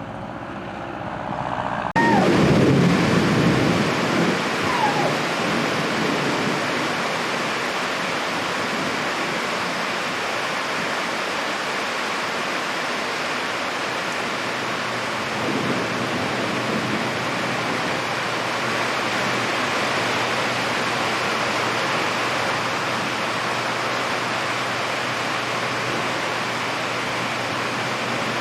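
Steady heavy rain, with a loud low rumble during the first few seconds after it begins.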